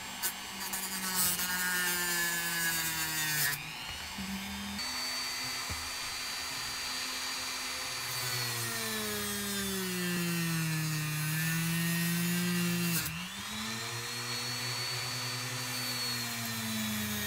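Dremel rotary tool with a sanding drum running and grinding down a steel spring. Its motor whine sags in pitch whenever the drum is pressed into the metal, with gritty grinding noise during the contact, heaviest in the first few seconds and again from about eight to thirteen seconds in.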